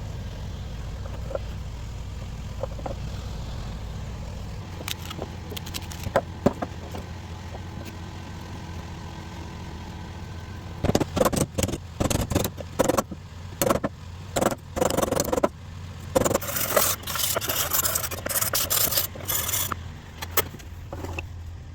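A knife blade being scraped in irregular, loud strokes from about halfway through, over a steady low hum that cuts off at the end.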